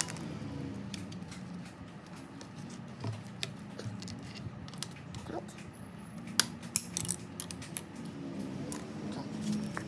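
Irregular sharp metallic clicks and snips of hand tools working a bicycle's front derailleur cable, with the loudest couple of clicks a little past the middle.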